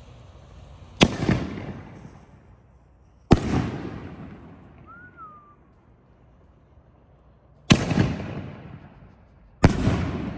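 4-inch canister firework shells firing: four sharp booms, each trailing off in a long rumbling echo, two about a second and three seconds in and two more near the end, as shells launch from the mortar tube and burst overhead.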